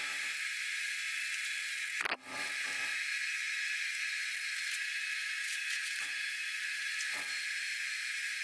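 Aerosol can of self-etching primer spraying through a snap-on trigger handle: a steady hiss, broken once for a moment about two seconds in.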